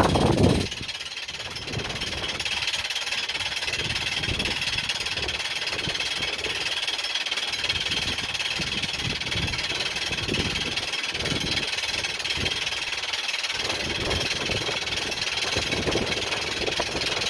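Steady mechanical running noise with a constant high whine, with irregular low gusts of wind buffeting the microphone.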